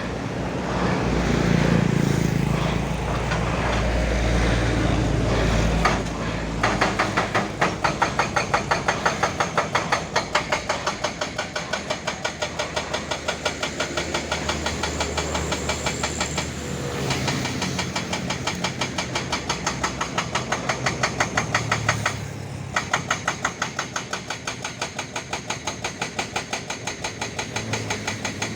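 Hyundai excavator's diesel engine running hard, then from about six seconds in a hydraulic rock breaker hammering at a fast, even rate of about four to five blows a second, with two short pauses along the way.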